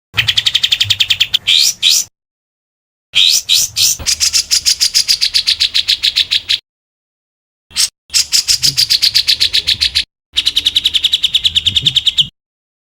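A songbird's rapid harsh 'tembakan' call: four bouts of fast, evenly repeated sharp notes, about ten a second, each bout cut off cleanly by a short silence.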